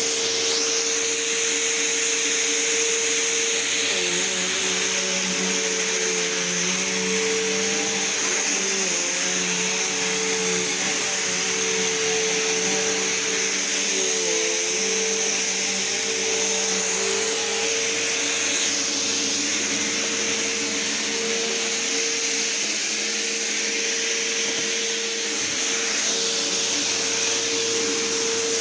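Vacuum cleaner running steadily, a constant motor whine over a rush of air, its pitch wavering slightly now and then as it is pushed across the floor.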